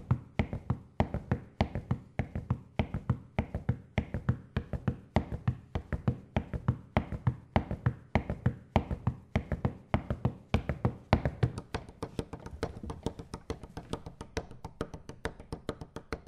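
Instrumental ending of a song: fast, steady rhythmic tapping percussion with some faint held tones underneath, growing weaker over the last few seconds.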